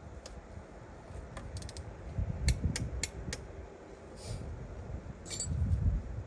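Metal hand tools and parts clicking and clinking during engine work, a quick run of clicks about halfway through and a ringing metallic clink near the end, over low knocks and rubbing.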